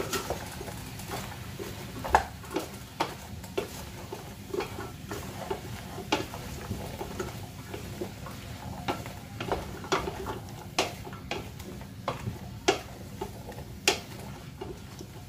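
Wooden spoon stirring chunks of beef, potato and carrot in a stainless steel pot, knocking and scraping irregularly against the pot's sides and bottom, over a steady low hum.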